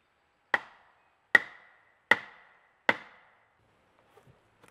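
Four hard wooden-mallet blows, about 0.8 s apart, driving a pole leg into a log sawhorse; each strike gives a sharp wood-on-wood knock that rings briefly. Faint knocks of wood follow near the end.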